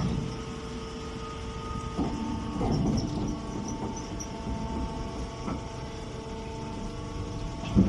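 Straw baling machine running with a steady mechanical hum and rumble, with a few knocks and clanks from its mechanism.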